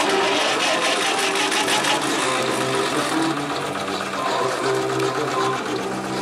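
Vintage tractor engine idling with a rapid, even clatter, with music playing under it.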